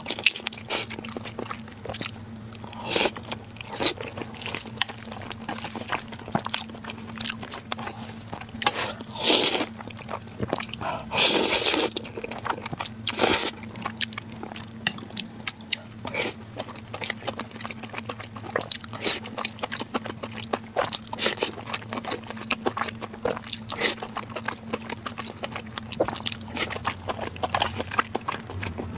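Close-miked eating of noodles and glazed braised meat: wet chewing and biting with many small smacking clicks, a few longer, louder stretches in the middle, and a faint steady low hum underneath.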